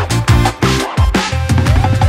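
Background music with a fast, steady drum beat and a bass line.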